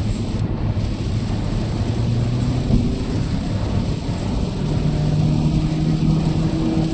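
Car cabin noise while driving in the rain: a steady low drone of engine and road with rain noise over it. The engine hum steps up in pitch about halfway through.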